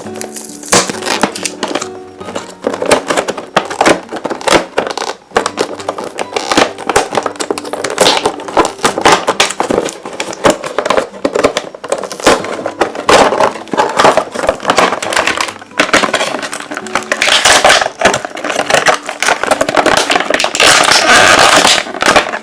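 Plastic and cardboard toy packaging crackling and cracking in dense bursts of clicks as a boxed doll set is opened, louder and busier in the last few seconds. Light background music plays underneath.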